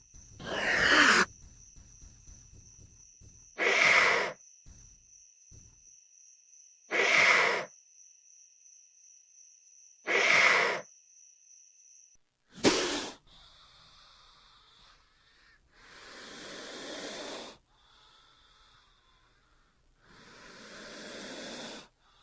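Titanoboa creature sound effects: four short, breathy snake hisses about three seconds apart. Then a sharp short hiss, and two longer hisses that swell louder and cut off abruptly.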